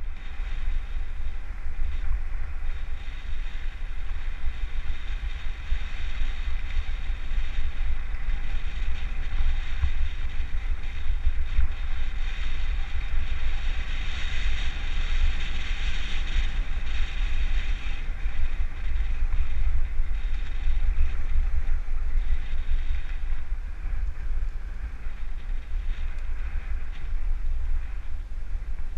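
Wind buffeting the microphone of a moving camera: a heavy, fluctuating rumble under a steady hiss that swells for a few seconds about halfway through.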